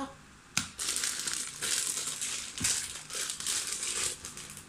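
Clear plastic packaging bag crinkling as it is handled around a coiled cable, with one sharp knock about half a second in.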